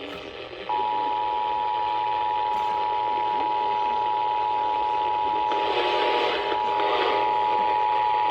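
Emergency Alert System attention signal: the steady two-tone alert (853 and 960 Hz sounding together), starting about a second in and cutting off suddenly some eight seconds later. It marks the start of an EAS activation, ahead of a spoken severe thunderstorm warning.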